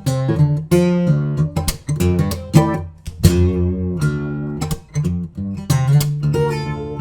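Lava ME 3 guitar being played: chords strummed and notes picked, each attack ringing on into the next.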